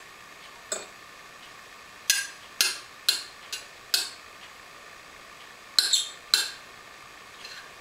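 A metal utensil clinking against cookware. There are about nine sharp clinks in irregular clusters, each ringing briefly.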